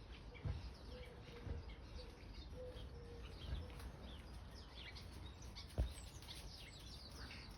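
Sparrows chirping over and over, many short calls, with wind rumbling on the microphone. A single sharp knock about six seconds in.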